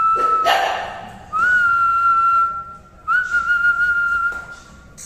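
High-pitched whistle-like tones, three long steady notes of about a second each, every one starting with a slight upward lift. About half a second in, a short harsh burst of noise cuts in.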